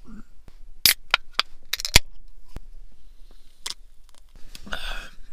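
A can of fizzy herbal tea being opened: a run of sharp clicks and cracks from the pull tab, the loudest about two seconds in. Near the end comes a short sip from the can.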